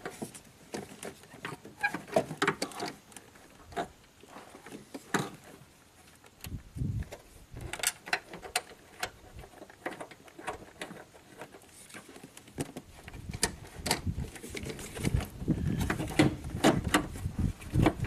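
Irregular clicks, knocks and rattles of plastic wiring-harness connectors being handled and pushed into an engine computer's (ECM) sockets, busier toward the end.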